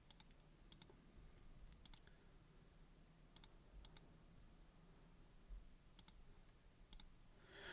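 Faint, scattered key clicks from a mechanical keyboard, a few keystrokes at a time with irregular gaps, some in quick pairs.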